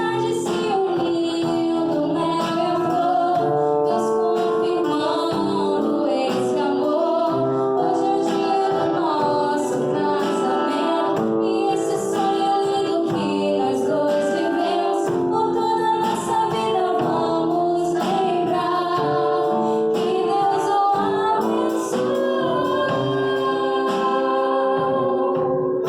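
Music with a woman singing over an instrumental accompaniment, a song in a gospel style.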